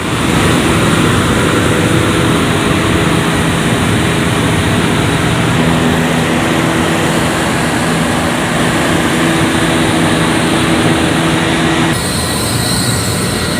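Oil-free Ingersoll Rand industrial air compressor plant running: a loud, steady mechanical hum with several steady tones over it. The sound changes abruptly about twelve seconds in.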